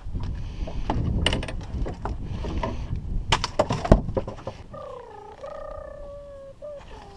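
Wind buffeting and handling noise on the microphone with several sharp clicks, the loudest just before the midpoint. Then, for about two seconds, a wavering, pitched call that glides up and down.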